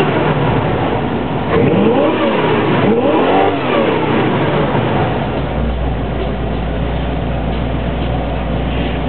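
1979 Chevrolet K5 Blazer's engine revved by the gas pedal: two rises and falls in pitch a couple of seconds in, then it settles back to a steady idle.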